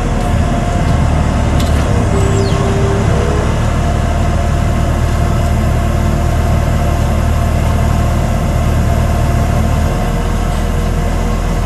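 Engine of a farm loader vehicle running steadily at low revs, its low hum shifting slightly about ten seconds in.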